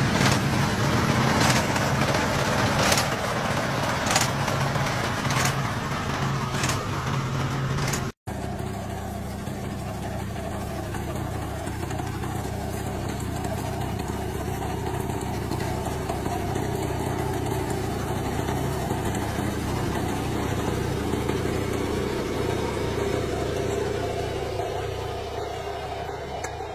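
Small engine of a walk-behind rice reaper-binder running steadily, with a sharp clack about every second and a quarter. After a break about eight seconds in, an onion harvester's engine and lifting mechanism give a steadier, quieter running noise.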